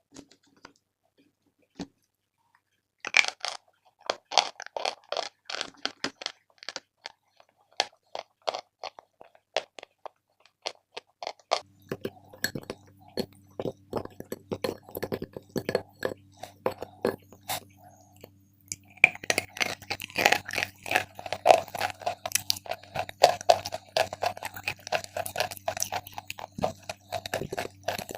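A person biting and chewing chalk: quick sharp crunches, sparse at first, then dense and continuous. A steady low hum comes in partway through.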